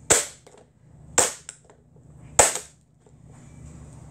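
A hammer smashing an upside-down RC car's plastic body and chassis against the floor: three sharp cracking blows about a second apart, each followed by a light clatter of loose parts.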